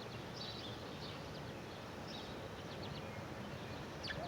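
Small birds chirping in short, faint high calls several times over a steady outdoor background hiss.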